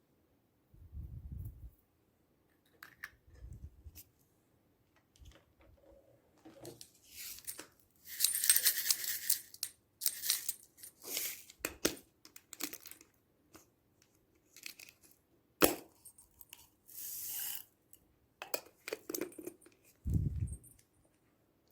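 Slime being handled and mixed, with irregular sticky crackling and tearing sounds, loudest about eight to ten seconds in. A few dull low thumps and a single sharp click come in between.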